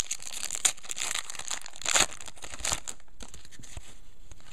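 Foil trading-card pack wrappers crinkling and tearing as packs of football cards are opened and handled, with short scratchy rustles and louder bursts around the second and third seconds, then quieter handling noise.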